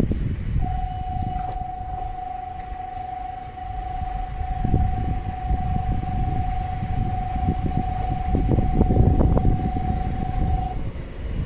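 Train rumbling with knocks, with a steady, single-pitched tone held for about ten seconds over it.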